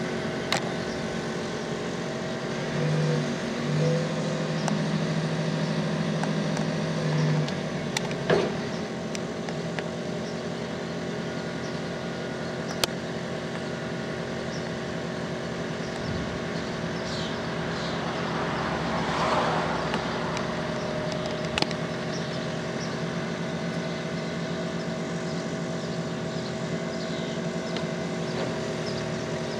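Caterpillar TH407 telehandler's diesel engine running steadily while its boom is raised, with a louder low hum from about three to seven seconds in and a few sharp clicks.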